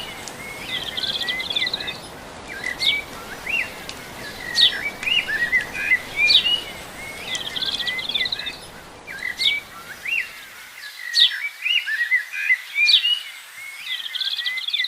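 Small songbirds chirping, repeated high chirps and short trills in a pattern that recurs every couple of seconds, over a steady low rushing noise that stops about ten seconds in.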